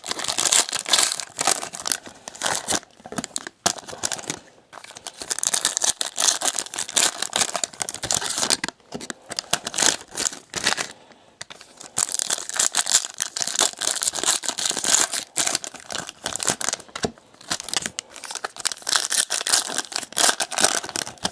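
Foil trading-card pack wrappers being torn open and crinkled by hand, in bouts of crackling with short lulls between.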